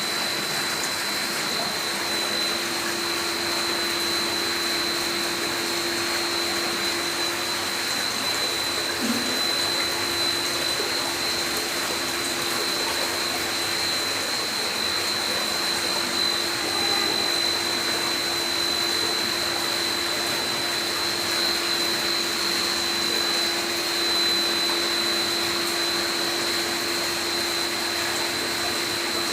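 Water from a stone fountain splashing and trickling steadily over rocks, with a steady high whine and a low hum running underneath.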